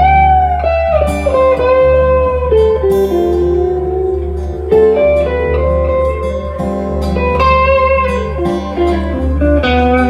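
Live band playing an instrumental break: a lead guitar with long sliding, bending notes over a steady low bass line.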